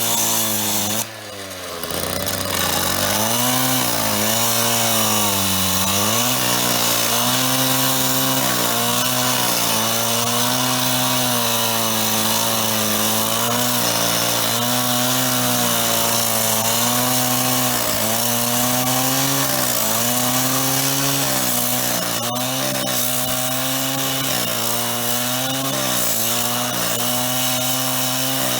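Power saw cutting into a steel payphone's housing, its motor note wavering up and down as it bites. It drops away briefly about a second in, then spools back up and runs on.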